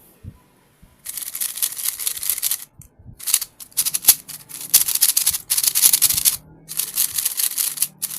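3x3 speed cube being turned fast, a rasping clatter of plastic layers sliding and snapping into place, in three runs of turning with short pauses. The cube feels bumpy to the cuber as it turns.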